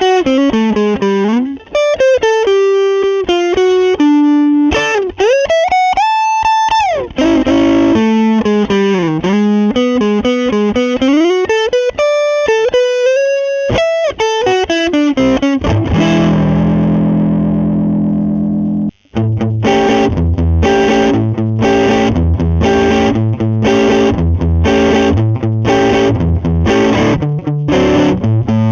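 Electric guitar, a modified Japanese Fender Telecaster with a Seymour Duncan Jazz humbucker, played through a Lovepedal Blackface Deluxe overdrive pedal. It plays single-note lead lines with string bends, then a held chord that stops short about two-thirds in. After the stop come rhythmic overdriven chords struck about twice a second, with the pedal's gain turned all the way up.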